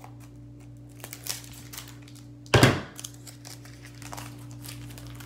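Trading-card pack wrapper crinkling as it is cut open with scissors and the cards are pulled out, with one louder crinkle about two and a half seconds in. A steady low hum runs underneath.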